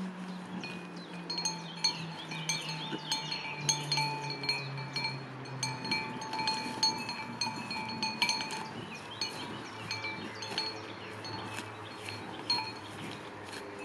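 Metal chimes or bells ringing, with many irregular light clinks over a few sustained ringing tones. A low held tone slowly falls in pitch through the first half.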